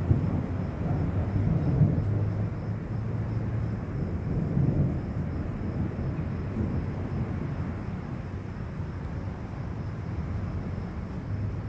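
Low rolling thunder rumbling, swelling a few times in the first seconds and then slowly dying away.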